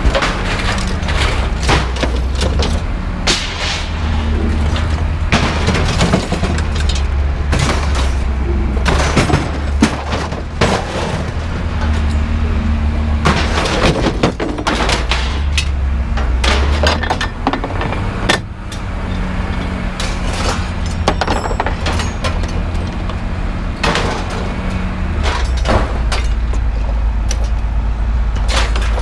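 Scrap metal (light iron) clanging and crashing again and again as pieces are lifted out of a pickup bed and thrown onto a pile, with a steady low engine rumble underneath.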